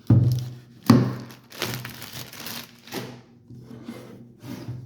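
A plastic bag crinkling and rustling as a heavy portable power station is pulled out of it, with a sharp thunk at the start and another about a second in as the unit is handled.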